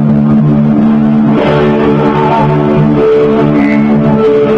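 Live band music led by an electric guitar, playing over steady sustained low notes; a higher held note comes in about three seconds in.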